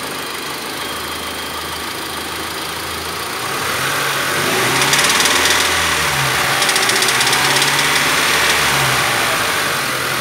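Mitsubishi L200 pickup engine idling, then revved up and down several times from about four seconds in, with a rattling clatter coming through as it revs. The owner puts the rattle down to the balancer (balance shaft) on the left side of the engine.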